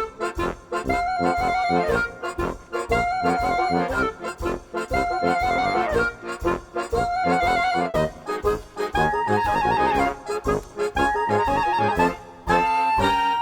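Background music with a steady beat and a repeating lead melody, the piece starting right at the outset.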